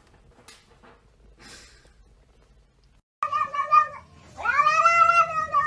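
Faint soft rustling, then about three seconds in a cat meows loudly: one short meow, then a long drawn-out yowl that rises and falls in pitch.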